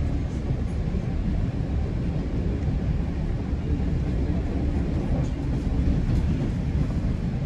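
GO Transit bilevel passenger train running on the rails, heard from inside the coach: a steady low rumble.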